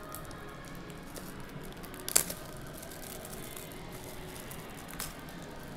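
A shrink-wrapped cardboard trading-card box being handled and unwrapped, with light plastic crinkling. There is a sharp knock about two seconds in and a lighter one near the end.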